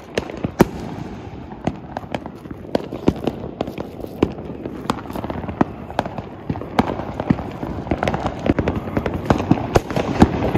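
Firecrackers going off in many scattered, irregular bangs and pops over a steady background hiss. One sharp bang comes about half a second in and another near the end.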